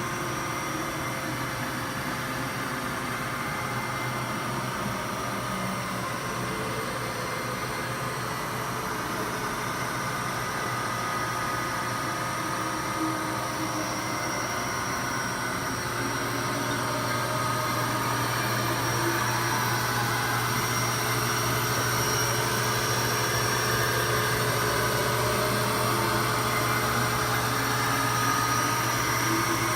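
Haas VF-3B CNC vertical machining center with a 20 HP geared-head spindle running a demo program: a steady machine hum with whining spindle and axis-drive tones. It grows somewhat louder about halfway through.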